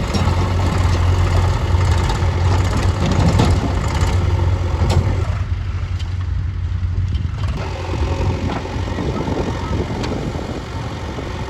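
Heavy diesel engine of earthmoving machinery running steadily with a strong low hum and a few short knocks. Its higher sound drops away for about two seconds just past the middle, then returns.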